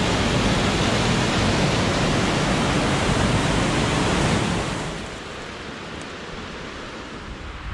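Small waterfall on a rocky mountain stream, water pouring into a pool: a loud, steady rush that drops to a softer, more distant stream sound about five seconds in.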